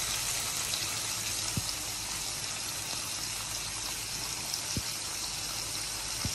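Meat sizzling on a charcoal-heated tabletop grill pan, a steady hiss, with a few light clicks.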